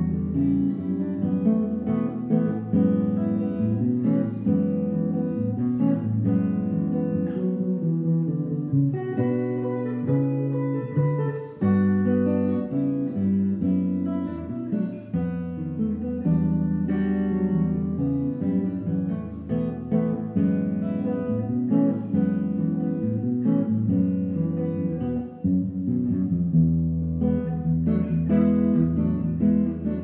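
Solo jazz guitar on a semi-hollow-body electric guitar, played unaccompanied: chords mixed with melody lines, flowing without a break.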